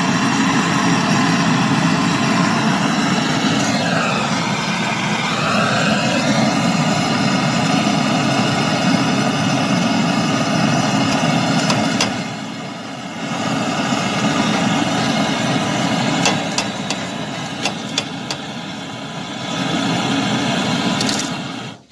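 Butane canister torch burning steadily as its flame heats a brazed copper pipe joint on a freezer compressor, softening the joint so the pipe can be pulled free. The flame noise dips briefly about halfway, and a few light clicks come near the end.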